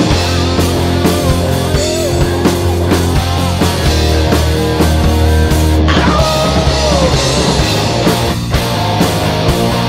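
Hard rock band playing live: electric guitars over bass and a driving drum kit, with a bending lead line above them.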